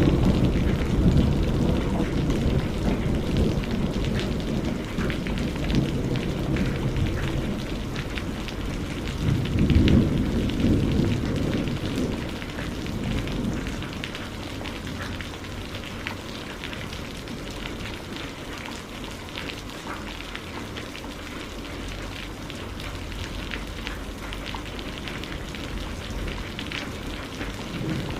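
Rain falling steadily, a dense patter of drops, with a low rolling rumble of thunder that swells about a third of the way through and then dies away, leaving just the rain.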